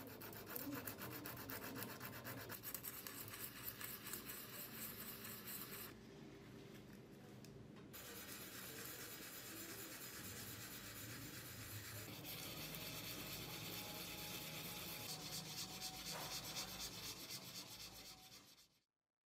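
Sandpaper rubbed by hand over the steel face of a hammer head, in rapid back-and-forth strokes. It is briefly softer about six seconds in, then carries on and stops abruptly near the end.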